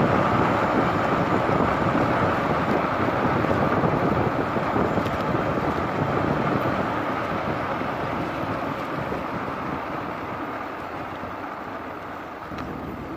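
A motor vehicle travelling, with wind noise on the microphone: a steady rushing noise that slowly fades toward the end.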